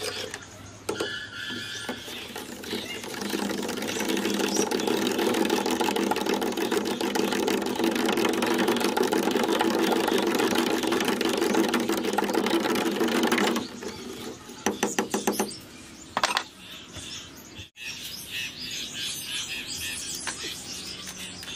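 A thin rod stirring salt into water in a plastic jar, knocking and scraping fast against the jar's sides in a rapid, steady clatter. This is the loudest part and stops about 13 seconds in. Two short bursts of stirring follow.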